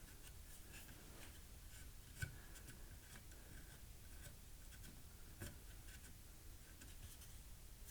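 Faint rubbing of heatsink compound into the top of a MOSFET package: small scratchy strokes at an uneven pace, with a slightly louder tick about two seconds in and again about five and a half seconds in.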